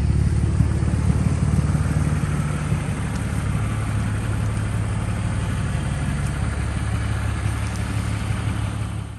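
BMW Z4 3.0i's straight-six engine idling steadily, a little quieter from about three seconds in and fading out at the end.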